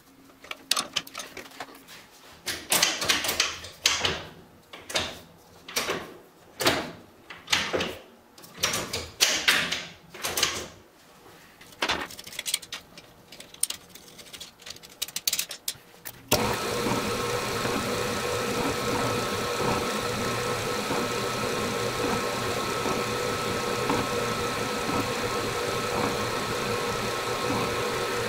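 A wrench working the bolt at the base of a shift lever on a T5 transmission, with irregular metal clicks and scrapes. About 16 seconds in, this gives way to a drill press running steadily as its bit bores into the steel bolt head at the end of the lever.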